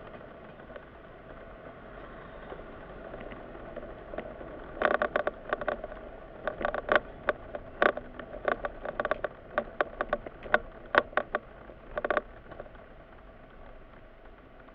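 Steady hum of a car's cabin in slow traffic. Through the middle comes a run of about fifteen sharp, irregularly spaced clicks, loud against the hum.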